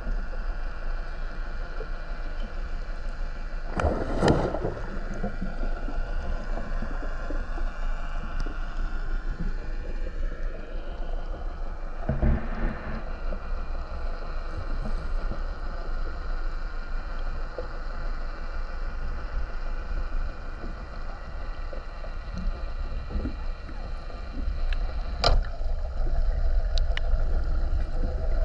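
Underwater ambience from a camera held just below the sea surface: a steady low rush of moving water, broken by three brief sharp sounds, about four, twelve and twenty-five seconds in.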